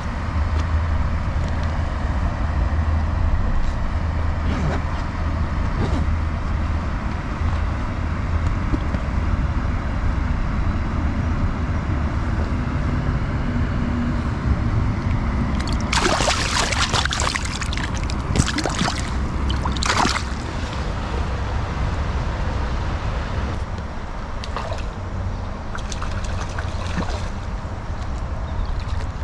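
Stream water trickling and gurgling, with a steady low rumble of wind on the microphone. About halfway through comes a few seconds of louder, sharper noise.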